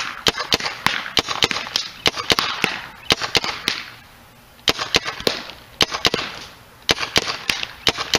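Spyder Victor CO2 paintball gun firing in rapid semi-automatic strings of several shots a second, each shot a sharp pop with a brief hiss. There are three runs of shots, with a short pause about four seconds in and another about six seconds in.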